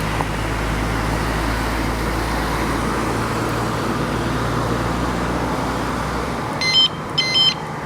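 Steady traffic and road noise while cycling, then a small bicycle horn beeps twice near the end with two short, high-pitched beeps.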